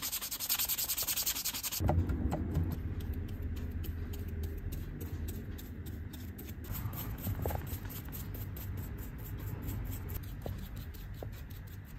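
Sandpaper rubbed by hand around a leather boot heel block in quick, even strokes to smooth its finish. The strokes are brighter and louder for about the first two seconds, then drop off abruptly to quieter scratching over a low hum.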